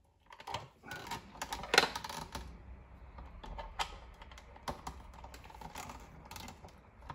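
Irregular light clicks and rustles of hands handling wires and the plastic parts of a sprinkler timer's wiring compartment while fitting its conduit cover, with the sharpest click about two seconds in.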